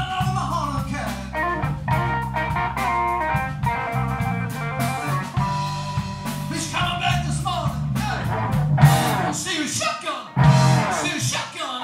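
Live blues-rock: electric guitar over bass and drums, with a man's singing coming in about seven seconds in.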